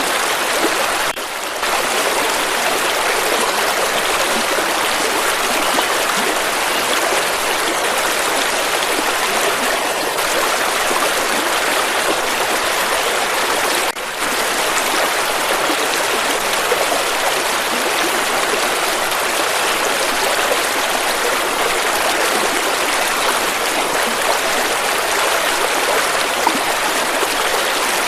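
River water flowing and rushing steadily, an even, continuous rush of water, with two brief dips in level, about a second in and about halfway through.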